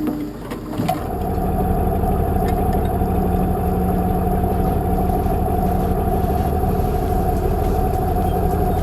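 A heavy machine's engine starts running loudly and steadily about a second in, with a constant whine over a low hum.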